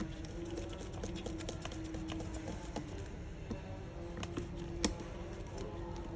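Light metal clicking and ticking from small tools and tiny screws on an iPad 2's casing as the screws are put back: a quick run of ticks about a second in, then scattered clicks, the sharpest a little before the end.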